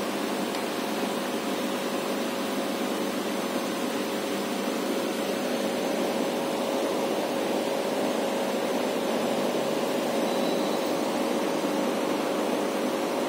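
Steady hum and hiss of aquarium equipment running, a constant noise with a few steady tones in it that does not change.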